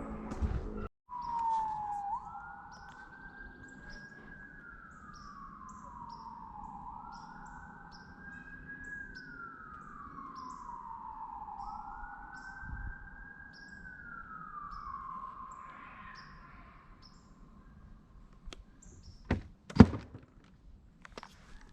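A siren wailing, its pitch rising and falling slowly three times before fading out. Near the end comes a single sharp, loud bang.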